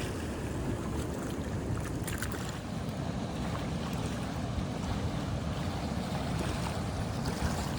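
Steady wind buffeting the microphone, a low rumbling hiss, with a few faint ticks about two seconds in.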